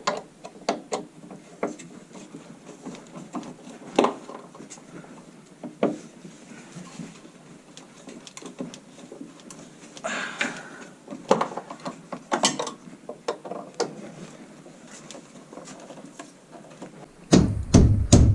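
Hand screwdriver driving wood screws into a wooden 2x6 support board, with scattered clicks, knocks and scrapes of the bit and screw. Near the end come heavier low thumps against the wood.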